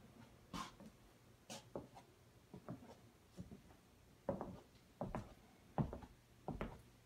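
Faint footsteps at a steady walking pace, a little more than one step a second.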